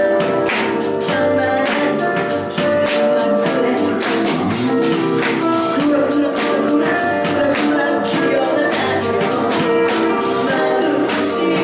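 Live band music: a woman singing into a microphone over drums and cymbals keeping a steady beat, with other accompanying instruments.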